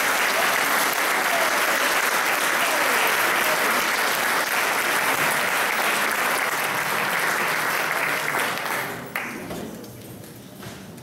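Audience applauding steadily, the clapping dying away about nine seconds in.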